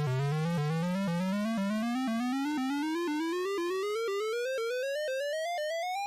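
Synthesized electronic tone rising steadily in small rapid steps, several a second, from a low buzzy note to a much higher one.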